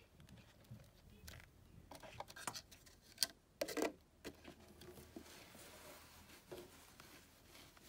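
Light handling noises: a few sharp clicks and knocks with some rustling over a faint low hum, the loudest knocks a little after three seconds and just before four seconds.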